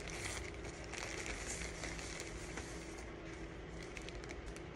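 Rustling and crinkling of plastic packaging and clothing being handled, with small ticks and crackles, over a steady low hum.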